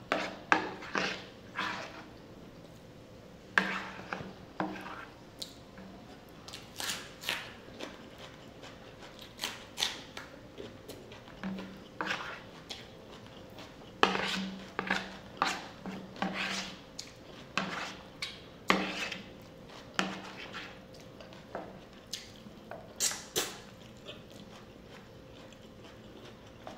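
Close-up eating sounds: a metal spoon clinking and scraping on a plate, mixed with chewing and mouth sounds, in many short, irregular clicks.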